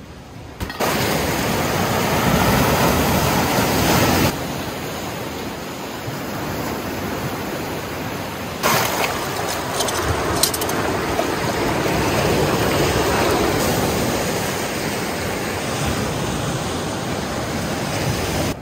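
Water rushing and washing over shoreline rock, a steady splashing rush that changes abruptly about four and about nine seconds in.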